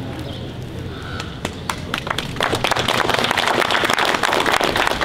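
An audience applauding: a few scattered claps at first, swelling into full, steady applause about two and a half seconds in.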